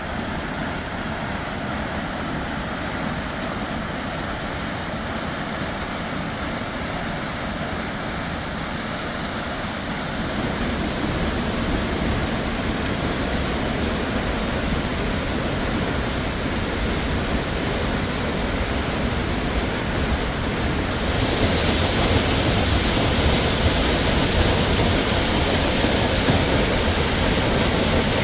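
Waterfall's steady rushing roar, growing louder in two sudden steps.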